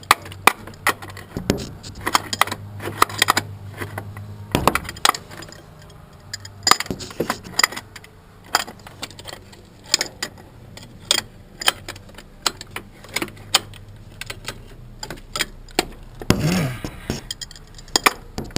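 Hand tools and metal parts clicking and clinking in quick, irregular strokes while being worked on an engine, with a low hum that stops about four and a half seconds in.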